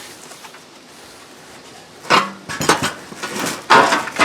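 Heavy steel truck-bed crossmembers clanking against each other as they are handled: a string of sharp metallic knocks starting about two seconds in, the loudest near the end.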